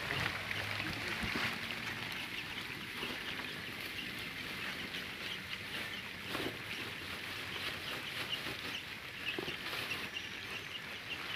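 Chickens clucking and calling in the background, many short high calls throughout.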